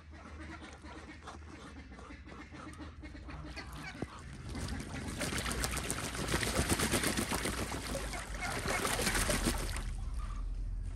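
Muscovy duck bathing in a metal tub of water, beating its wings and splashing, heaviest through the middle and later seconds.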